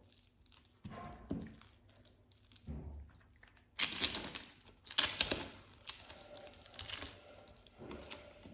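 Close-miked eating: crunchy food bitten and crunched, with loud crackling bursts about four and five seconds in, followed by chewing.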